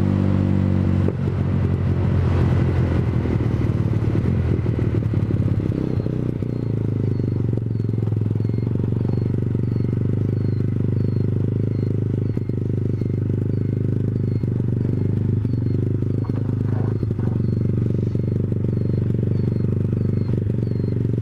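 Honda CBR125R motorcycle engine running at steady revs, its note shifting about a second in. A faint high chirp repeats about twice a second through the later part.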